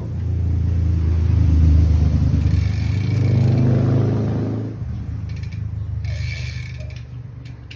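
A motor vehicle's engine running low and steady, building up over the first couple of seconds and fading away after about five seconds, like a vehicle driving past.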